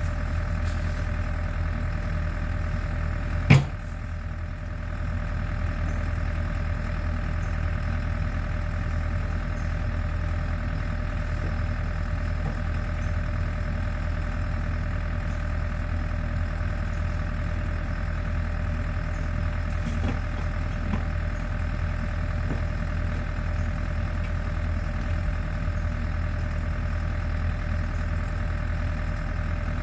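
Champion portable generator engine running steadily at a constant speed. About three and a half seconds in there is one sharp knock, and the running sound dips briefly before settling back.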